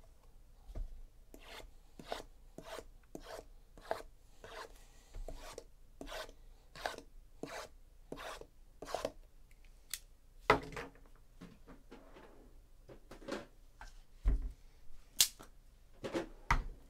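Shrink-wrapped 2017 Topps Tier One hobby boxes being shuffled and restacked by hand: a quick run of rasping slides, about two a second, as the boxes rub against one another. In the second half come a few sharp knocks and dull thuds as boxes are set down on the stacks.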